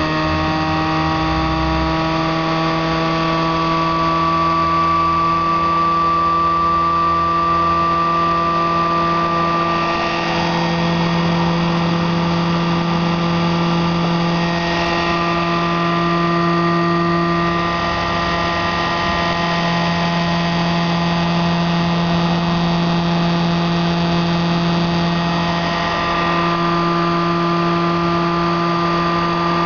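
Homemade Bedini pulse motor running at speed, its Plexiglas magnet rotor spinning on a hard-drive bearing between pulsed coils: a steady whine with many overtones. Its pitch rises a little over the first few seconds as the rotor speeds up, then holds.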